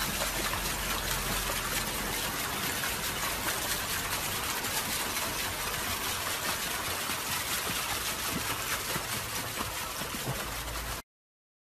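Steady splashing and rushing of swimming-pool water, which stops abruptly about eleven seconds in.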